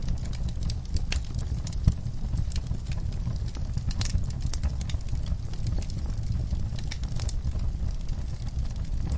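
Fire in an outdoor firepit crackling: irregular sharp pops and snaps over a steady low rumble of the flames, with one louder pop about two seconds in.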